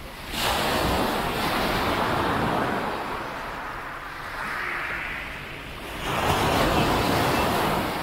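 Sea waves breaking and washing up the beach: one surge about half a second in, a softer wash near the middle, and another surge near six seconds.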